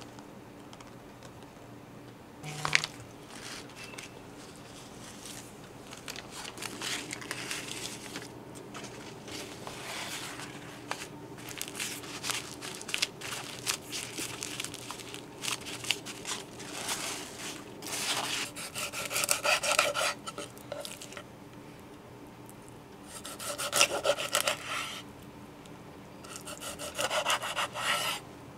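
Paper towels rubbed and pressed against salted mackerel fillets, then a large kitchen knife sawing through the fish on a wooden cutting board in three short bouts of rapid rasping strokes in the second half. One sharp knock comes a few seconds in.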